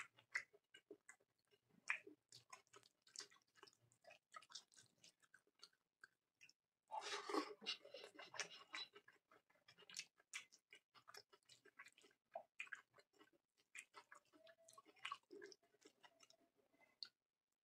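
Soft, close-up chewing and lip smacking of a mouthful of fried rice with curry, eaten by hand, with wet clicks of the fingers working the rice. A louder stretch of chewing comes about seven seconds in, as a fresh handful goes into the mouth.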